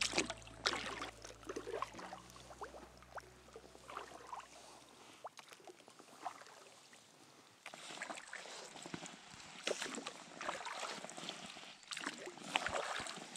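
Dinghy oars dipping and pulling through calm water, with irregular light splashes and drips off the blades. Background music with sustained low notes fades out about five seconds in.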